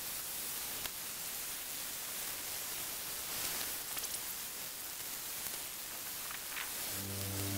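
Steady outdoor background hiss with a few faint ticks and rustles. Background music comes in near the end.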